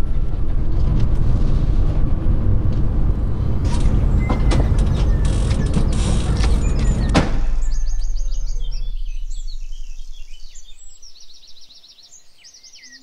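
Loud rumble of a car driving along a gravel road, with scattered small clicks, cutting off suddenly about seven seconds in. A faint low hum fades away after it, and small birds chirp and tweet through the rest.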